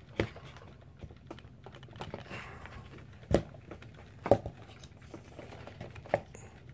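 Small clicks and taps of a Magpul polymer pistol grip being worked onto an AR-15 lower receiver over the selector detent and spring, with four sharper knocks spread through.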